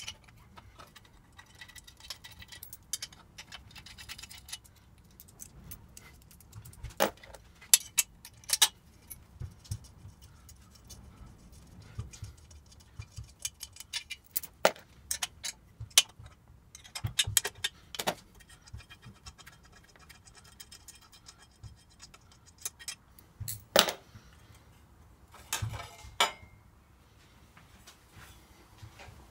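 A spanner undoing the bolts that hold a stainless steel turbo exhaust pipe to its flange, and the pipe being lifted off: stretches of fast, light ratchet-like ticking broken by scattered sharp metal clinks, a handful of them much louder.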